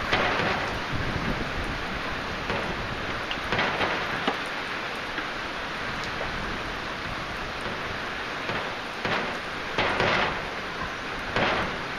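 Heavy rain falling steadily, a dense even hiss with a few brief louder swells.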